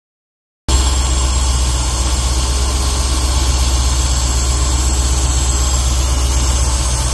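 Mercedes-Benz 3.5-litre V8 with Bosch D-Jetronic fuel injection idling steadily, starting abruptly after a moment of silence. The auxiliary air slide has just been cleaned and refitted, and the engine is running evenly on it.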